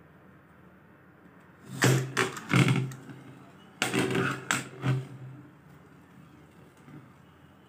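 Homemade metal Beybladés spinning tops clashing on a glass plate: two clusters of sharp clacks and clinks, the first about two seconds in and the second about four seconds in, as the tops strike each other and the plate.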